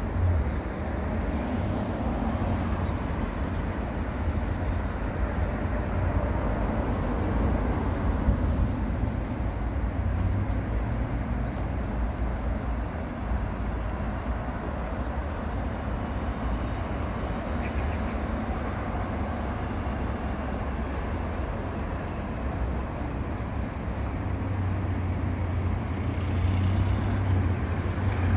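Road traffic noise: a steady low rumble with a hiss over it, growing louder near the end.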